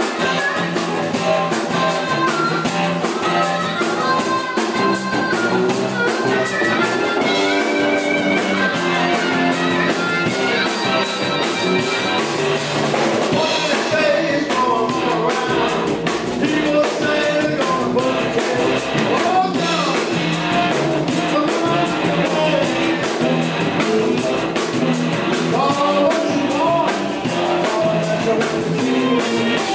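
Live blues band playing: two electric guitars and a drum kit, with a male lead singer.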